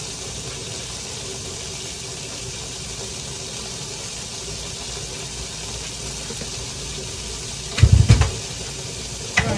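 Steady sizzling hiss from food frying in a hot frying pan on an electric stove, with a short burst of loud low knocks and bumps about eight seconds in.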